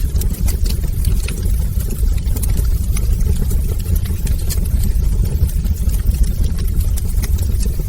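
Fire burning in a fireplace: a steady low rumble of the flames with frequent small, sharp crackles and pops scattered throughout.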